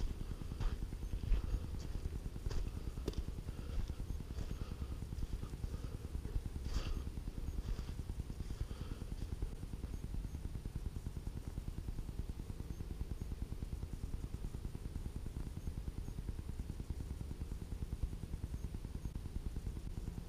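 Footsteps crunching on dry leaf litter, about one or two a second, thinning out after about halfway, over a steady low rumble.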